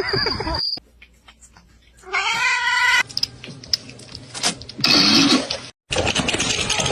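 A cat meowing once, a drawn-out call of about a second that rises and falls in pitch, amid short, abruptly changing stretches of other noise.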